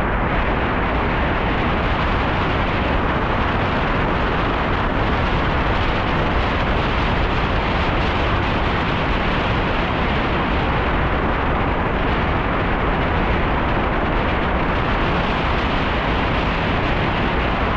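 Wind blasting the microphone of a camera riding along on a moving bicycle: a loud, deep, steady rush of noise with no break.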